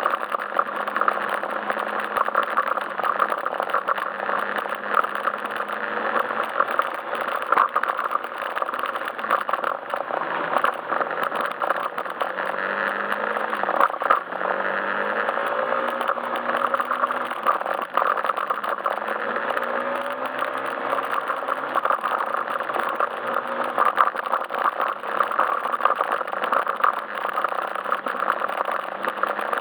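Yamaha Majesty S scooter's single-cylinder engine running under way, its pitch rising and falling with the throttle, over steady road noise with many small rattles and clicks.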